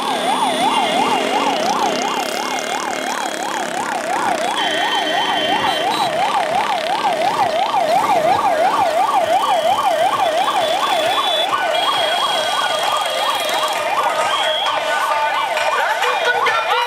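Emergency vehicle siren on a fast yelp, its pitch sweeping up and down about four times a second without a break.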